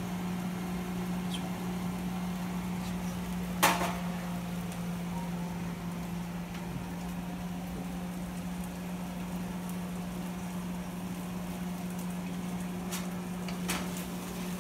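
A steady low hum, with metal tongs clacking against a wok once sharply about four seconds in and lightly a few times near the end.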